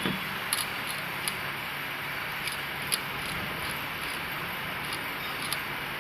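An alternator's freewheel (overrunning) pulley being turned by hand, giving irregular ticks and clicks over a steady hiss. The pulley is faulty and is the cause of the engine's chattering noise.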